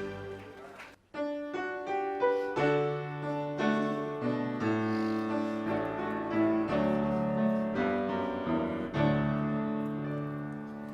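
The last sung chord of a hymn fades out, then after a brief gap a piano plays a hymn introduction: single struck notes that build into full held chords.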